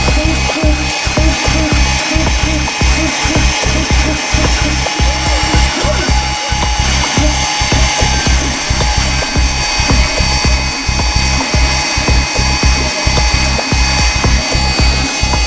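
Dental CNC mill's high-speed spindle cutting a zirconia blank: a steady high whine over a rapid, irregular clatter.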